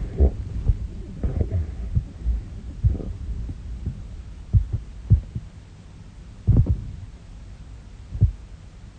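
Sleep sounds from a woman whose snoring is suspected of being sleep apnea: about a dozen short, soft low thuds at irregular intervals, with no full snore in between.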